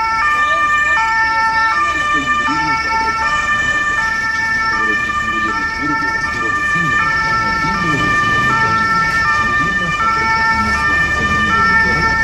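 Ambulance siren wailing in a stepped pattern, its pitch jumping up and down about every three-quarters of a second over a held higher tone, with the rumble of traffic underneath.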